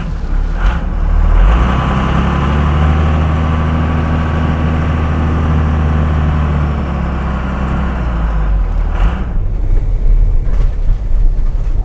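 A motor vehicle engine running steadily at an even pitch, dying away after about eight seconds.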